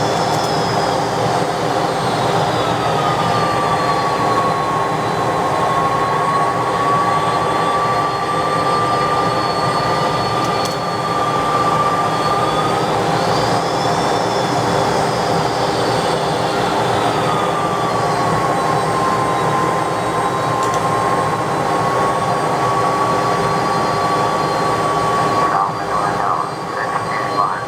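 DC-10 jet engines running with a steady rumble, a whine that twice slides down in pitch and then holds level, and fainter high tones rising and falling over it.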